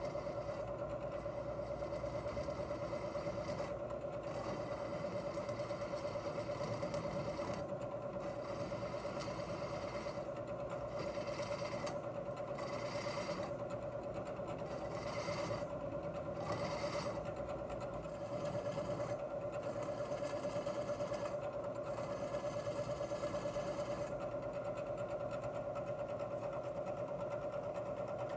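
Milling machine spindle running with a steady whine as a drill bit cuts into a steel exhaust adapter plate, drilling out old studs.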